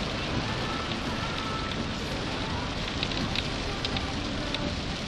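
Steady rain hiss with scattered drop ticks, heard from inside a car.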